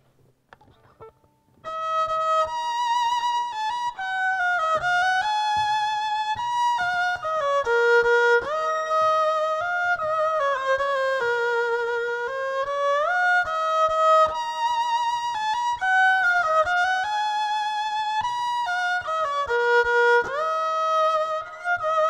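Music: a violin playing a slow, single-line melody with vibrato and sliding notes, starting about two seconds in.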